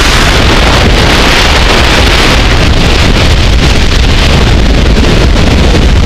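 Freefall wind rushing over a skydiver's camera microphone: a loud, steady buffeting rush with no break.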